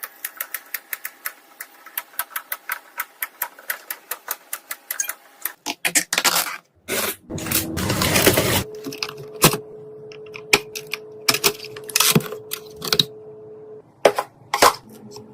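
Handling noises of PC parts being assembled: a fast run of light clicks, about four or five a second, then a rustling scrape and scattered clicks and knocks. A faint steady hum sits under the second half.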